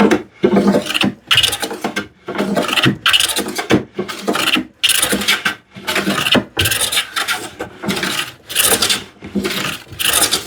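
Hand plane taking short, quick strokes along the edge of a solid cherry board, each pass a rasping shave, roughly one or two a second, knocking down high spots left by a freehand bandsaw cut.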